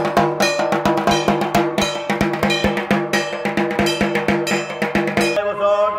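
Fast, dense dhak drumming, sticks beating the big barrel drums of Durga Puja over a sustained droning tone. It cuts off abruptly near the end.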